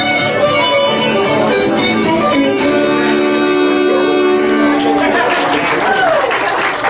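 Uilleann pipes, fiddle and acoustic guitar playing an Irish traditional tune that ends on a long held note a little over halfway through, followed by audience applause and whoops.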